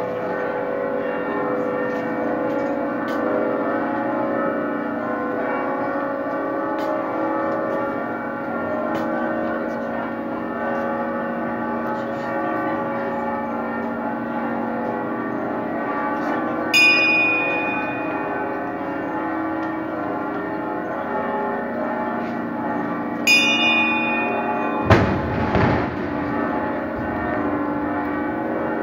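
Church bells ringing a continuous festive peal of many overlapping tones. A small bright bell, the one hung in the gilded processional standard, rings out sharply twice, past the middle and again near the end. A single dull bang sounds shortly after the second ring.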